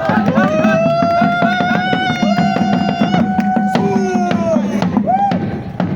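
Music with drums and other percussion under a long held, sliding melody note, which stops near the end.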